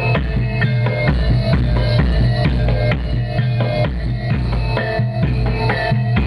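Live percussion-driven music for a Topeng Ireng dance: pounding drums with a heavy bass drum, overlaid with short ringing metallic tones, in a steady driving beat.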